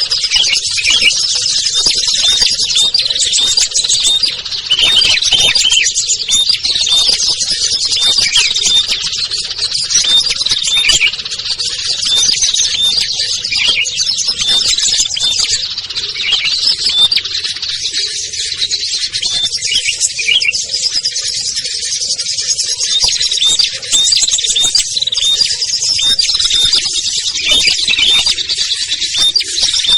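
A dense, busy chorus of many small songbirds chirping and trilling at once, high-pitched and continuous. It is a layered lure recording mixing species such as bar-winged prinia, sooty-headed bulbul and bar-winged warbler, used to draw wild small birds down to a trap.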